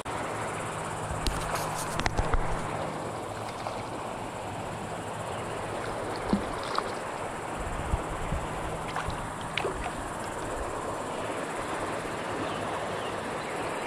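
Shallow creek water running steadily over rapids, with a few brief clicks and splashes about a second and a half in and again midway as a small smallmouth bass is reeled in and brought to hand.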